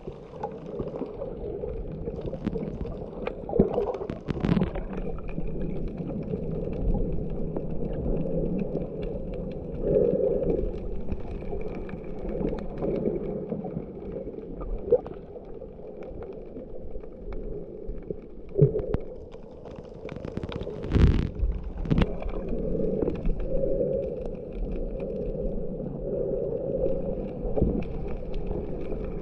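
Muffled underwater sound from a snorkeler's camera just below the surface: water sloshing and gurgling in slow swells, with a faint steady thin whine and a few sharp knocks. The loudest knock comes about two-thirds of the way through.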